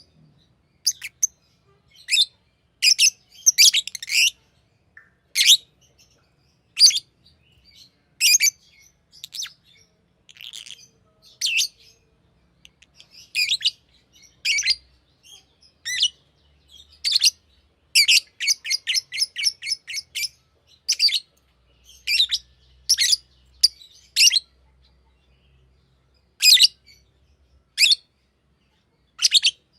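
Green lovebird chirping: short, sharp, high chirps at irregular intervals, with a quick run of rapid chirps about two-thirds of the way through.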